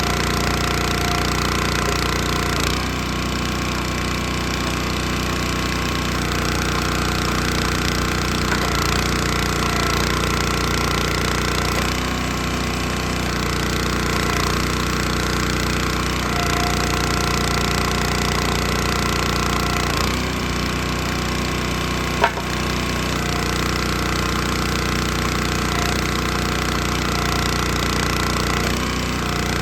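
Small gas engine of a log splitter running steadily, its note shifting slightly a few times. One sharp knock about 22 seconds in.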